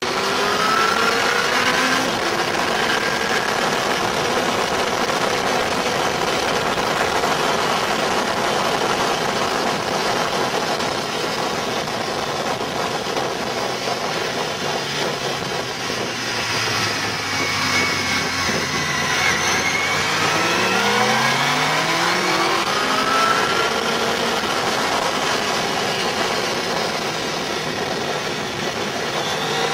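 Sport motorcycle engine accelerating and shifting up through the gears, its pitch rising again and again, most often past the middle, over a steady rush of wind and road noise at speed.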